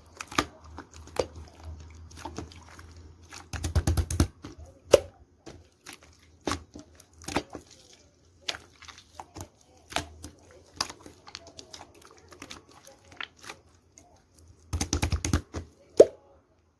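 Scattered sharp clicks and taps, with two quick runs of rapid tapping, one about four seconds in and one near the end.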